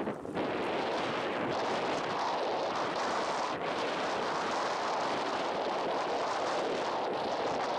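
Strong wind buffeting the camera microphone: a loud, steady rushing noise.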